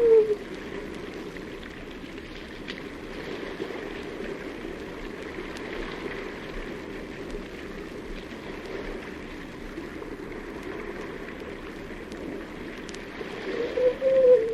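Steady water noise in a cave, with a seal's howling call dying away at the very start and another wavering howl beginning near the end.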